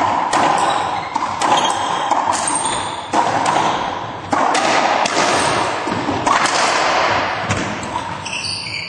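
Racquetball rally: sharp cracks of the ball off racquets and the court walls roughly once a second, each one echoing in the enclosed court. A few short high squeaks come near the end.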